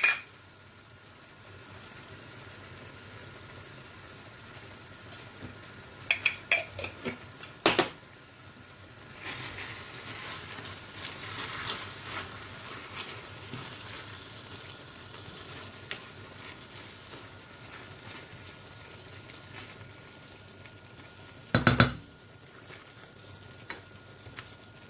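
Wooden spoon stirring a thick spinach sauce in a stainless steel pot, over a faint steady sizzle from the pan. A few quick clicks of the spoon against the pot come about a quarter of the way in, a longer scraping stir follows, and near the end there are two loud knocks against the pot.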